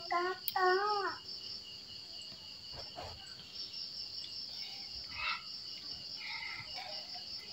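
Steady, high-pitched chirring of crickets throughout. A child's voice is heard briefly in the first second.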